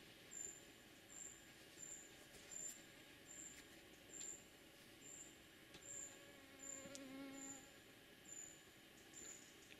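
Faint high chirps from an insect, repeated evenly a bit more than once a second, over near silence. A short, faint low hum rises and fades about seven seconds in.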